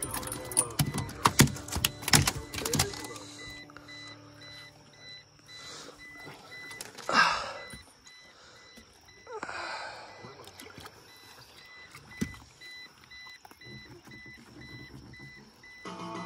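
A flathead catfish flopping and thrashing on a boat deck: a quick run of thumps and slaps in the first few seconds, then a couple of brief scuffs as it is grabbed and handled, the louder one about seven seconds in. A faint electronic beep repeats steadily underneath.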